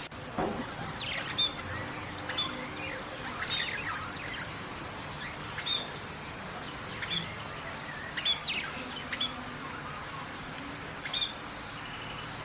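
Birds chirping: short, sharp calls every second or so, over a steady background hiss.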